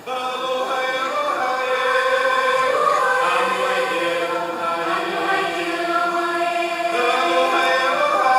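A group of young children singing together in unison, holding long sung notes; the singing starts abruptly.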